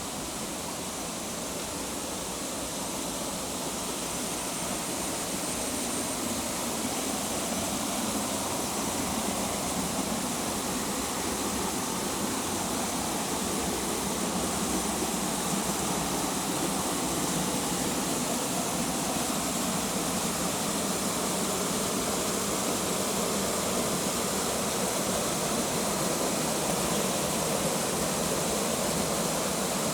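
Waterfall rushing: a steady, even wash of falling water that grows slightly louder over the first ten seconds or so, then holds.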